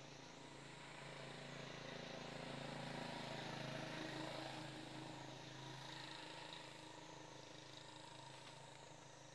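A distant engine hum that swells to its loudest about four seconds in and then fades away.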